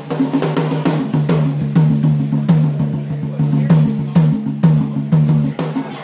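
Drum kit played live in a steady beat of snare and bass drum, with bass guitar notes stepping in pitch underneath.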